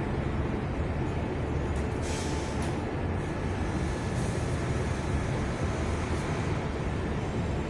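Steady low rumble of city road traffic, with a short hiss about two seconds in.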